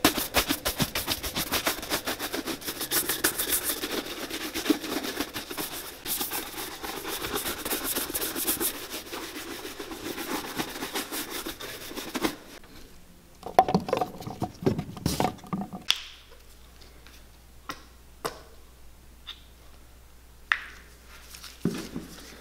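A bristle shoe brush scrubbing the leather uppers of a boot in fast back-and-forth strokes for about twelve seconds. The brushing then stops and gives way to a few knocks and handling sounds, and later to sparse light clicks.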